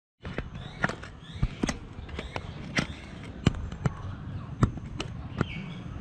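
An oriental pied hornbill's bill tapping and knocking against the camera: about a dozen sharp, irregular taps.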